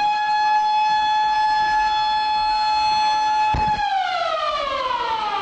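Siren wail holding one steady pitch, then sliding down in pitch over the last couple of seconds, with a low thump a little over three and a half seconds in.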